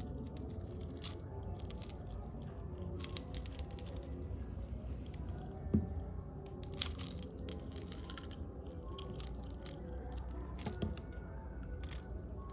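Small metal keychain clinking and jingling in short bursts as it is handled, several times over, over faint background music.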